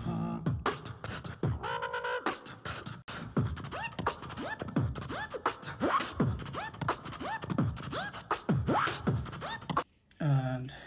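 Vocal beatbox backing beat: a steady rhythm of mouth clicks and kick-drum-like thumps falling in pitch, about two a second, with a short break near the end.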